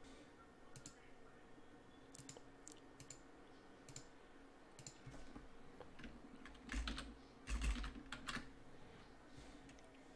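Faint computer keyboard typing and mouse clicks: a few scattered clicks, then a quick run of louder keystrokes about seven seconds in as a word is typed.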